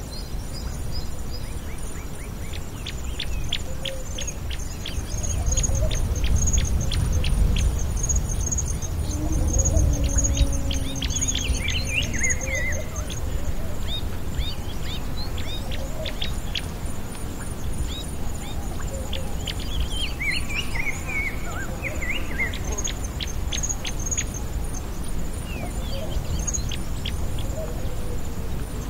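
Several small birds chirping and singing: rapid short chirps with a few warbling phrases, over a high, evenly pulsed trill. A low rumble swells underneath in the first half.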